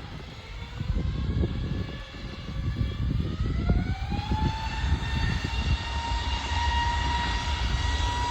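Airliner jet engines spooling up: a whine rises about halfway through and then holds steady at a high pitch. An uneven low rumble of wind on the microphone runs underneath.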